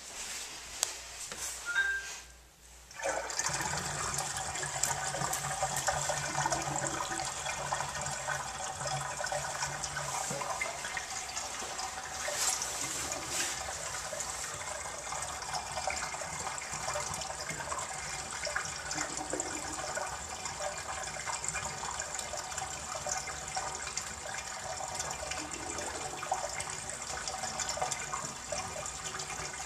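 Water draining out of a filled Jacuzzi Elite Series whirlpool bathtub: a steady rush of water down the drain that starts about three seconds in and keeps running.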